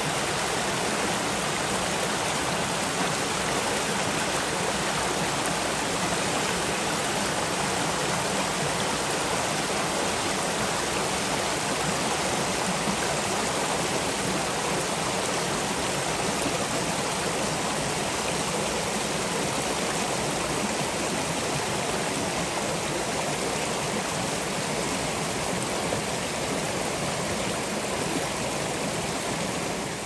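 Shallow rocky mountain stream rushing and splashing over boulders in small cascades, a steady rush of water.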